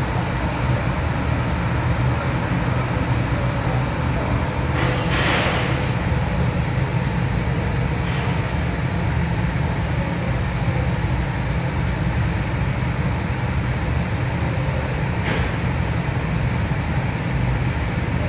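Kart engines running steadily on the track, a continuous low drone, with a brief louder swell about five seconds in as one comes nearer.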